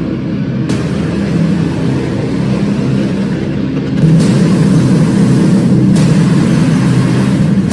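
Sound design of an animated logo intro: a dense, low, engine-like rumble that gets louder and brighter about four seconds in.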